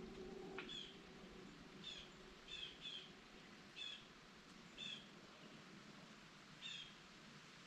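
Faint, short high chirps from a small bird, about seven single calls at irregular intervals, over a quiet background hiss.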